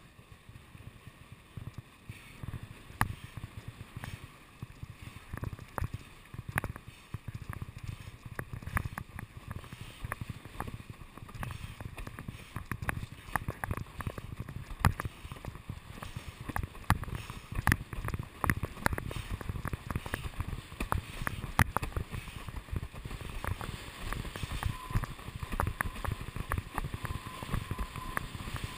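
Windsurf board planing over choppy water, its hull slapping the chop in irregular sharp smacks over a low rumble of wind and water. The smacks come more often and louder in the second half.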